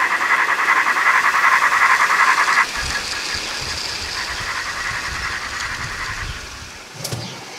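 OO gauge model steam locomotive and mineral wagons running along garden railway track, a steady fluttering whirr and wheel rattle that stops suddenly about two and a half seconds in, leaving a fainter hiss. A short knock near the end.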